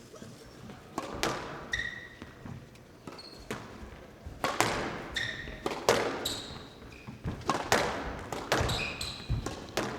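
Squash rally: the ball cracking sharply off rackets and the court walls about once a second at an uneven pace, with short high squeaks from shoes on the court floor between shots.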